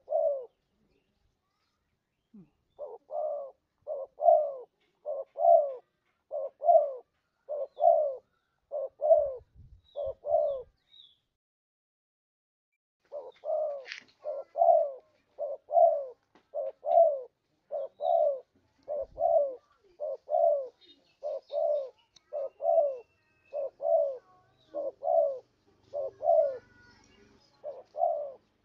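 Spotted dove cooing: a long run of low, evenly repeated coos, broken by two pauses of about two seconds, one near the start and one about a third of the way through.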